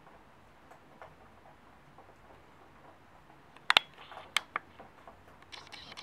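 A pet rabbit chewing dry food, a faint run of quick crunching ticks. About three and a half seconds in come two sharp clicks and a short rustle, followed by a few more clicks, and there is another brief rustle near the end.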